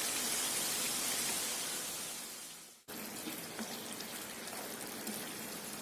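Gujiya pastries deep-frying in hot oil, a steady sizzle. It fades out and breaks off a little under three seconds in, then carries on slightly quieter.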